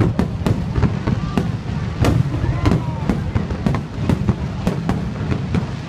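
Aerial fireworks display: shells bursting in an irregular run of sharp bangs, about two or three a second, over a continuous low rumble of further bursts.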